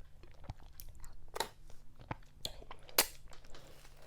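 Close-up mouth sounds of someone eating fufu with okra vegetable soup: chewing with a series of short, sharp wet smacks, the loudest about three seconds in.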